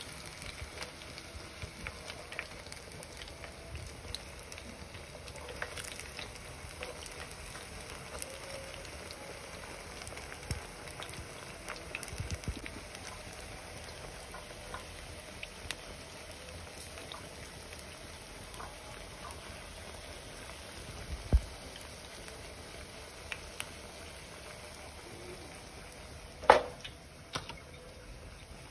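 Breadcrumb-coated pork fillets frying in hot oil in a pan: a steady sizzle with small crackles and pops. Two sharp knocks stand out, one about three quarters of the way in and a louder one near the end.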